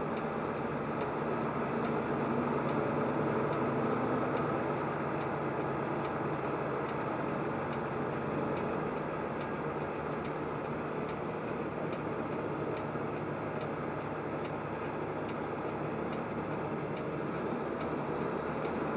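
Steady road and engine noise inside a truck cab cruising at highway speed, with a regular light tick a little faster than once a second.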